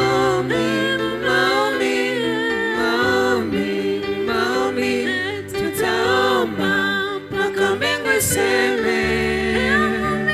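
Gospel worship song: several voices singing together over a steady low accompaniment.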